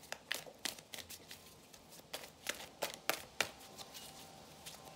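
A deck of oracle cards being shuffled by hand: an irregular run of sharp card flicks and slaps, strongest a little past three seconds in.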